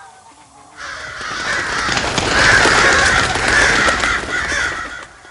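A flock of crows cawing, many calls overlapping into a dense clamour that swells in about a second in and dies away near the end.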